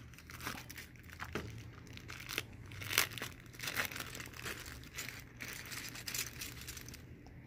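A thin plastic bag of small parts crinkling and rustling as it is pulled out of a foam box and handled. The crackles come irregularly; the loudest is about three seconds in.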